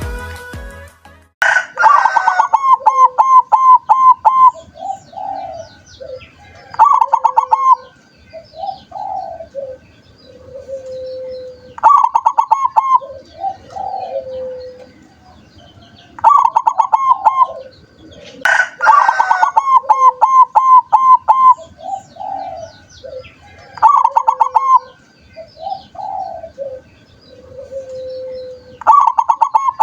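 Zebra dove (perkutut) singing: about every four to five seconds a phrase of quick, stuttering coos, then a few lower, longer coos.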